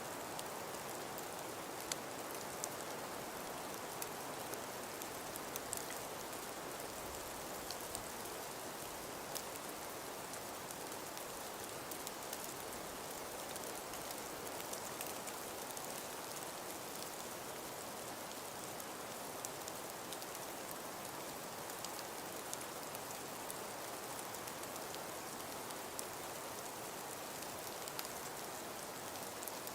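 Snowstorm ambience: a steady hiss of wind-driven precipitation, with faint scattered ticks of flakes or pellets striking a surface.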